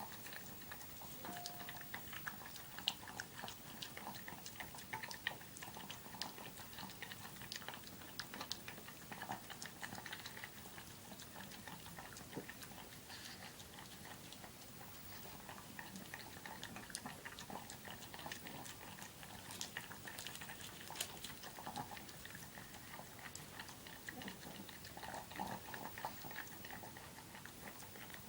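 A pug eating Weetabix: faint, scattered chewing, licking and small clicks, irregular throughout.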